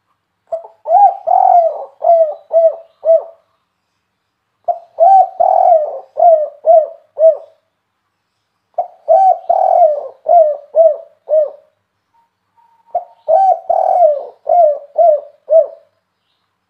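Spotted dove cooing: four song phrases about four seconds apart, each a short note and a longer swelling coo followed by a quick run of short clipped coos. This is the song type Indonesian dove fanciers call "kuk 3".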